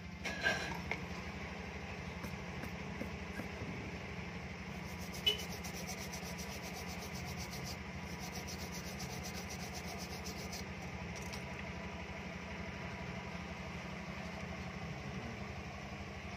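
Cotton swab scrubbing back and forth across a phone circuit board, a quick, fine rubbing for several seconds in the middle, over a steady low hum. A couple of sharp clicks, the first just after the start.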